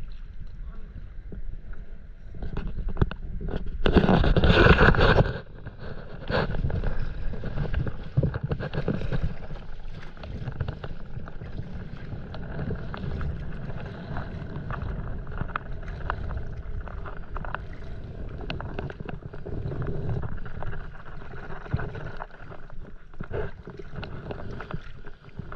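Sea water splashing and lapping around a stand-up paddleboard as it is paddled through light chop, with many small knocks and drips, and a louder rush about four seconds in.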